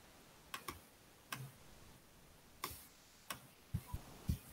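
Faint, irregular light taps and clicks, about eight of them, made while handwriting letters on a digital whiteboard.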